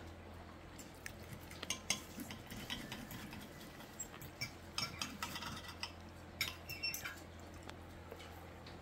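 Cutlery clinking and scraping against a dinner plate during a meal, in short scattered clicks and scrapes, over a steady low hum.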